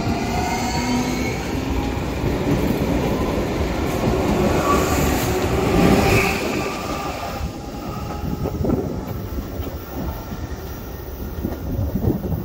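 Alstom-built CPTM electric train passing close along a platform: steady wheel-and-rail running noise with a faint motor whine gliding in pitch, and a brief high squeal about six seconds in. From about seven and a half seconds in, the train noise is quieter, with scattered clicks.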